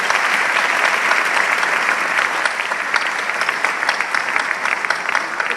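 A large audience applauding steadily, slowly fading near the end.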